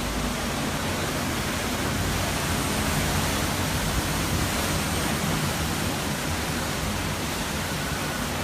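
Hurricane-force wind blowing hard and continuously: a steady, dense rushing noise with no breaks.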